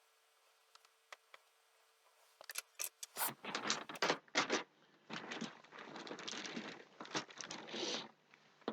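Handling noise at a workbench: irregular clicks, taps and scrapes of small tools and parts being picked up, moved and set down, starting about two seconds in and growing busier.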